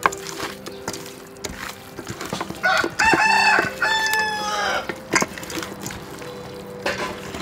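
A rooster crows once, a call of about two seconds starting a few seconds in. Soft clicks and squelches of hands mixing seasoned pork ribs in a steel bowl run underneath.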